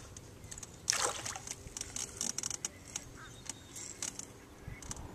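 A hooked bass splashing at the water's surface as it is fought to the side of the canoe, with one louder splash about a second in and scattered small clicks and knocks.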